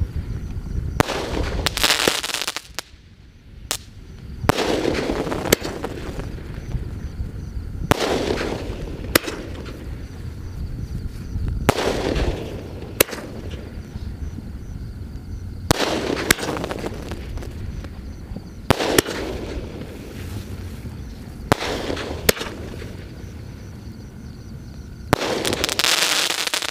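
12-shot aerial firework cake firing its shells one after another, about every three to four seconds. Each shot is a sharp bang followed by a crackling burst overhead.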